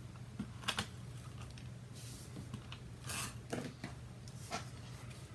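Cardstock sheets being handled on a cutting mat: a few sharp clicks and snaps from a small handheld craft tool, and a brief paper rustle just after three seconds, over a steady low hum.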